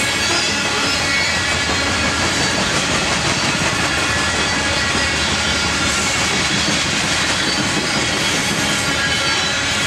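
BNSF coal train's coal cars rolling past: a steady, loud rumble and rattle of steel wheels on rail, with faint high-pitched whining tones mixed in.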